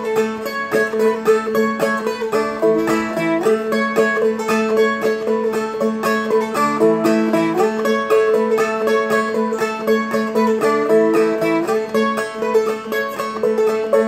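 Seagull Merlin M4 played clawhammer style, with no voice: a repeating riff of plucked melody notes walking up and down over a steady open-string drone.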